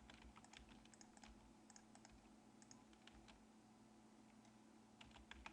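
Faint, scattered clicks of a computer keyboard and mouse, several a second, with a pause of about a second and a half after the middle. A low steady hum sits beneath.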